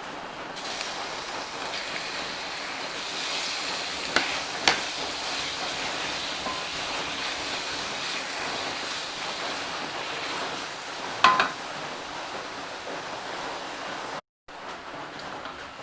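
Bacon sizzling in hot oil with garlic and onion in a frying pan, a steady hiss. A utensil clinks against the pan a few times: twice around four seconds in and once more later.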